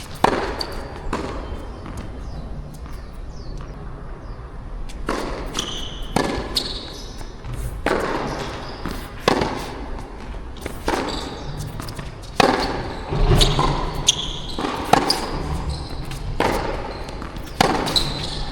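Tennis ball struck by rackets and bouncing on the court during rallies: a dozen or so sharp separate pops, irregularly spaced a second or more apart. Steady low wind rumble on the microphone, with a few short high squeaks between shots.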